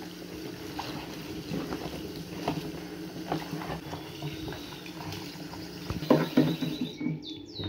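Kitchen tap running into a plastic colander of cut pumpkin cubes while hands rub and rinse them, the pieces knocking lightly against each other and the bowl. The cubes are being washed of the baking soda they soaked in. Near the end a bird chirps several quick falling notes.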